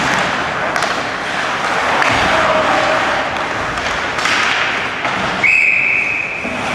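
On-ice hockey play: skates scraping and thumps of puck and sticks against the boards. About five seconds in, a referee's whistle blows one steady blast of about a second, stopping play after the goalie covers the puck for a face-off.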